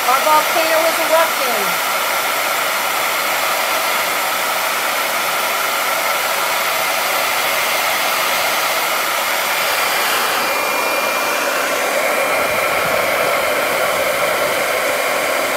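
Conair hand-held hair dryer running steadily, blowing hot air onto crayons to melt them. A few short gliding squeaks sound in the first second or so, and about ten seconds in the tone shifts slightly as a steady whine comes in.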